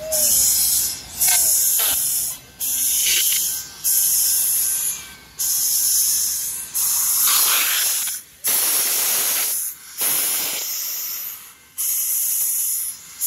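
Nickel Plate Road 765, a 2-8-4 Berkshire steam locomotive, hissing out steam in regular loud bursts, about one every second and a quarter.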